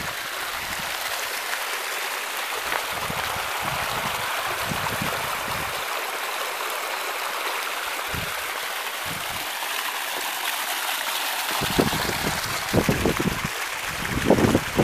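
Water running steadily and quickly down a narrow stone-lined channel, with wind gusts buffeting the microphone, strongest in the last few seconds.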